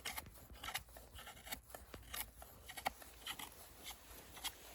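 A very sharp knife blade slicing thin feather-stick curls off a soft pine stick: a run of short, faint scraping cuts, about three a second.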